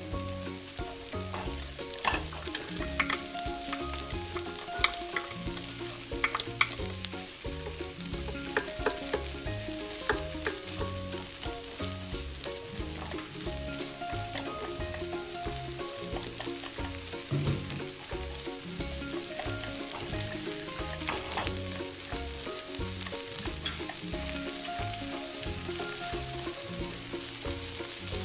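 Food sizzling in oil in a cooking pot while it is stirred, with sharp clicks of the utensil against the pot scattered through.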